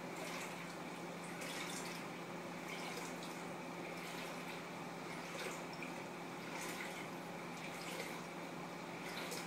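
Steady low hum and hiss with faint scattered ticks: background room tone.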